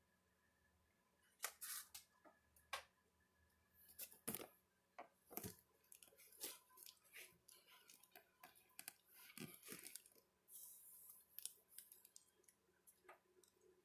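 Faint handling noise: irregular clicks, taps and rustles, with a brief hissing rustle a little past the middle, as hands move around the cardboard box of a new TV.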